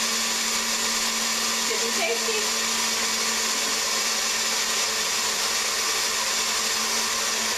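Small personal countertop blender running steadily as it blends ice and coffee: an even, loud whir over a low steady motor hum.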